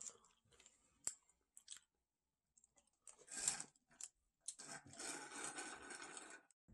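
Crispy fried chicken being pulled apart and paper food wrappers rustling: a few sharp crackles in the first two seconds, then a crunchy burst and a longer rustle in the second half.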